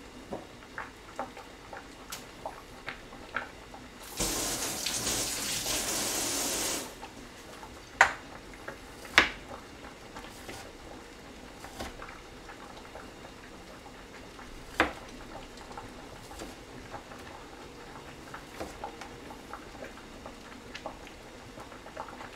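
Kitchen faucet running for about two and a half seconds, starting about four seconds in, set among light taps. After it, a kitchen knife slices kiwi on a plastic cutting board, with a few sharp knocks.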